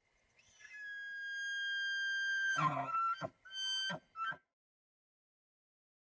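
A high whistling call, held for about two seconds, that breaks into a short low grunt and then two or three shorter whistles.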